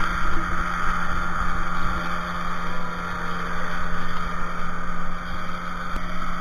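Inflatable banana boat towed at speed behind a motorboat: steady rushing and splashing of water along the boat, with the steady drone of the towing motorboat's engine. A short click near the end.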